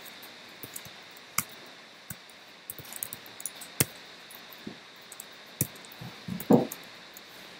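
Typing on a laptop keyboard: irregular key clicks, with one louder, brief low sound about six and a half seconds in.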